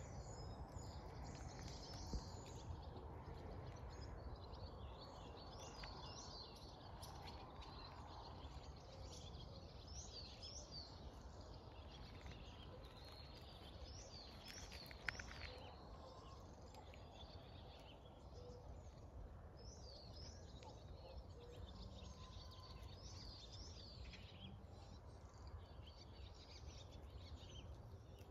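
Faint birds chirping and singing, many short calls scattered throughout, over a low steady outdoor rumble.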